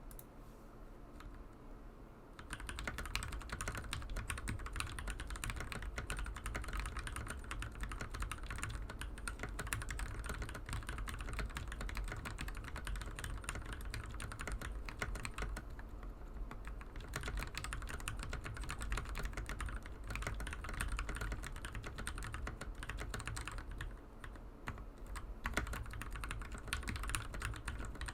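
Fast, continuous typing on an RK68 mechanical keyboard with Gateron Yellow Pro linear switches, a dense run of keystroke clacks. It starts about two seconds in and slackens briefly twice.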